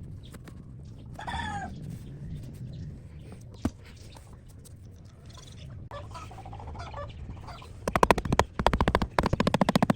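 An animal call about a second in, with fainter calls around six seconds. From about eight seconds a fast, loud run of repeated strokes sets in.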